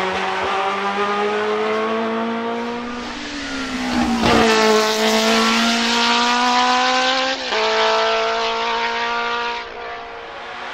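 The March 782 Formula 2 car's BMW M12/7 2.0-litre four-cylinder racing engine at high revs. It is loudest with a dip in pitch about four seconds in as it passes, then pulls away with revs climbing, makes one quick upshift about seven and a half seconds in, and fades near the end.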